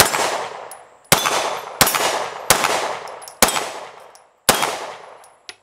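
Six 9mm shots fired one at a time from a Glock 19 pistol fitted in a Recover Tactical P-IX chassis, roughly a second apart. Each shot has an echo that trails off before the next.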